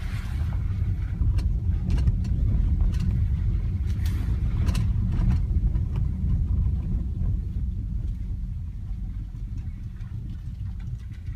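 Low in-cabin rumble of a 2014 Ford Edge driving over a rough, muddy dirt road, with scattered knocks and clicks in the first half. The rumble gets quieter toward the end.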